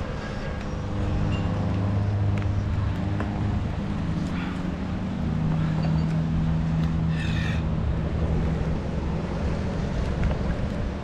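Chainsaw engine running at high revs as it cuts through a tree limb, its note stepping up in pitch about halfway through.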